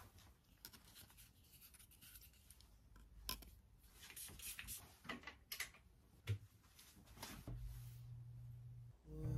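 Faint rustling and handling noises with scattered clicks and taps, one louder tap a little after six seconds in. Near the end a steady low hum sounds for about a second and a half.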